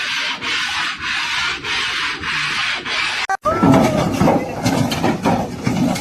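Rhythmic scraping or rubbing strokes, about two a second. They cut off suddenly about three and a half seconds in and give way to a louder, lower jumble of sound.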